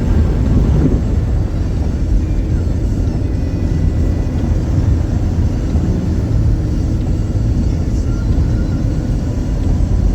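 Car driving on a snow-covered road, heard from inside the cabin: a steady low rumble of tyres and engine.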